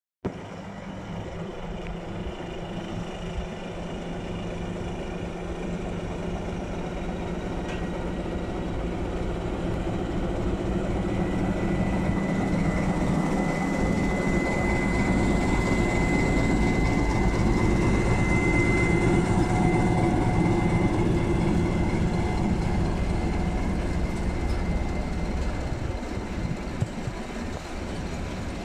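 SM42 diesel-electric shunting locomotive running under load as it pulls a freight train away from a standstill, growing louder as it comes past and easing off as the loaded open wagons roll by. A steady high whine sounds for several seconds in the middle.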